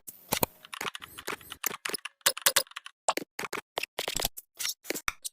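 A rapid, irregular run of sharp clicks and taps, about six a second, stopping just before the end.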